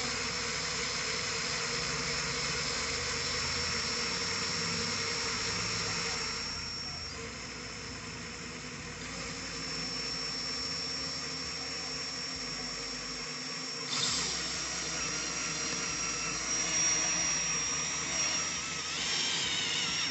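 Ryobi 18V cordless drill running under load, drilling pilot holes through the vehicle floor: a steady high motor whine that eases for a few seconds midway, then picks up again.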